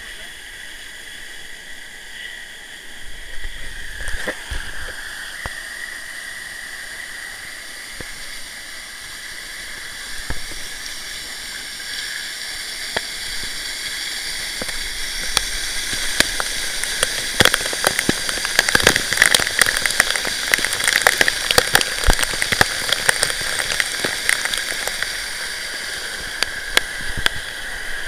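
Waterfall water pouring onto and around the camera: a steady rush with many sharp spatters of drops striking the camera. It grows louder and the spatters come thicker about halfway through.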